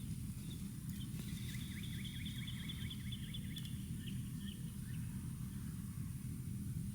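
A songbird singing a rapid series of repeated chirping notes, about six a second, for a few seconds, over a steady low outdoor rumble.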